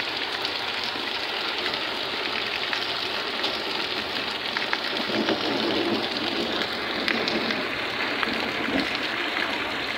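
Heavy rain pouring onto a flooded mud yard, a steady hiss of drops splashing into standing water.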